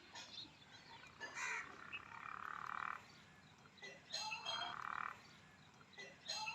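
Frog croaking: two rough, pulsed calls about two seconds apart, with a shorter call before them.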